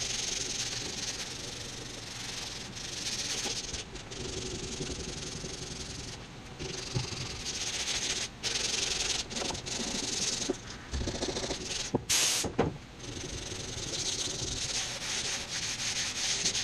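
Hand sanding of hardened body filler on a van roof with sandpaper: repeated scratchy back-and-forth strokes, broken by short pauses, smoothing down the filler.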